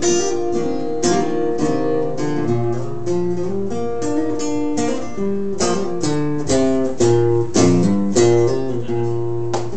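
Acoustic guitar strumming and picking chords, with notes ringing on, in the closing instrumental bars of a song after the last sung line.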